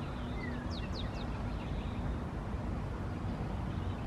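Outdoor background of a steady low rumble with small birds calling: several quick, downward-sliding chirps in the first second and a half.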